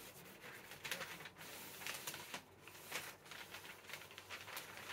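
Butcher paper rustling and crinkling in irregular bursts as it is handled and folded over a twisted T-shirt.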